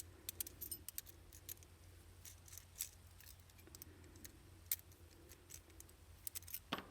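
Faint, scattered small metallic clicks and scrapes of hands working the core out of a Master Lock 931 padlock. A quick cluster of clicks comes near the end.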